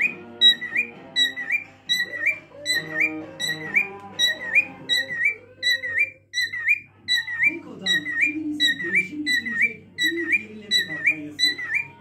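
Cockatiel calling a short whistled chirp that rises and falls, repeated over and over about twice a second, with guitar music playing underneath.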